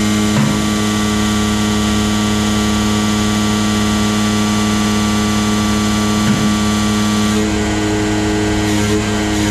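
Diesel pump test bench running at a steady speed, giving an even, pitched machine hum with a couple of faint knocks. The tone shifts slightly about three quarters of the way through.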